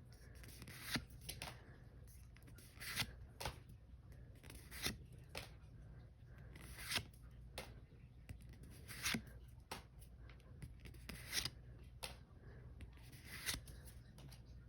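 Pokémon trading cards being flicked through one at a time, a short papery swish every second or two over a low steady hum.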